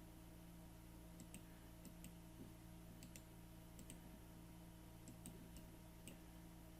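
Near silence over a steady low electrical hum, with about ten faint, sharp clicks at irregular intervals.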